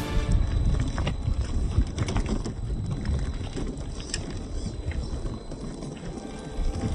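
Off-road RC crawler truck driving over loose rocks, its tyres crunching and stones clicking now and then, over a low rumble of wind on the microphone.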